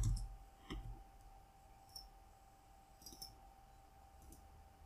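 Computer mouse clicking: a handful of short, scattered clicks, over a faint steady hum.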